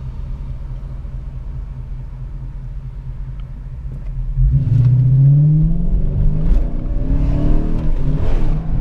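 The 5.7-litre Hemi V8 of a 2014 Dodge Challenger R/T fitted with a cold air intake, idling at a light, then launched at full throttle about four and a half seconds in, the engine pitch climbing and dropping back at an upshift before climbing again. Heard from inside the cabin.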